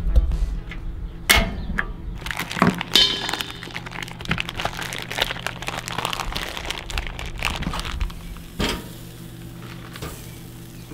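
Handling noises while getting a gas grill going: scattered clicks, clinks and knocks of metal, with plastic packaging crinkling, over faint background music.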